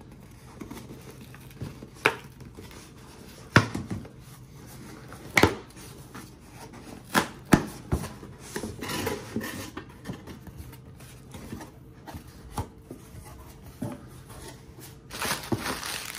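Cardboard box being opened by hand: tabbed flaps pulled loose and folded back, giving several sharp snaps between quieter scraping and rustling of cardboard. Bubble wrap crinkles near the end as the packed contents are uncovered.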